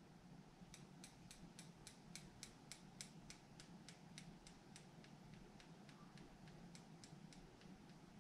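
Eyelash curler squeezed over and over, its scissor-like handles giving faint clicks about four a second that thin out and stop near the end.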